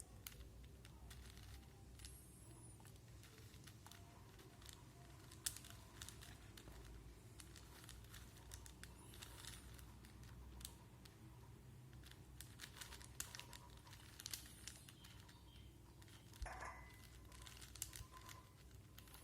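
Faint, irregular plastic clicks and scrapes of a 4x4 Rubik's cube being turned layer by layer, with one sharper click about five and a half seconds in.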